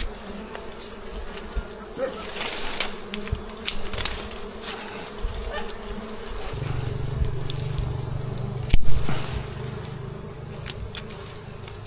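Wild honeybees buzzing around their nest as it is harvested. The hum grows fuller about halfway through, with scattered clicks and rustling from the comb being handled and one louder knock near the end.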